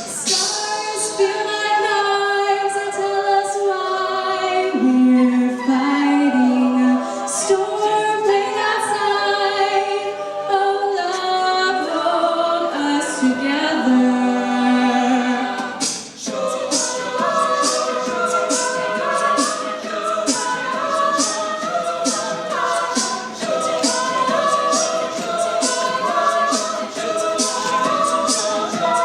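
Mixed-voice a cappella group singing in close harmony, holding long chords at first. About halfway through, after a brief dip, a beatboxed beat comes in under a more rhythmic vocal arrangement.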